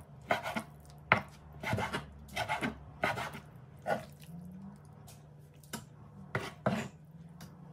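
Kitchen knife slicing raw chicken breast on a wooden chopping board. The blade knocks on the board in short, uneven strokes about every half second to second, with a pause past the middle.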